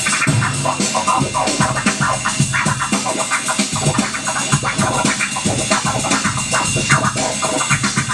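Turntable scratching: a record is rapidly cut back and forth in many short, choppy strokes over backing music.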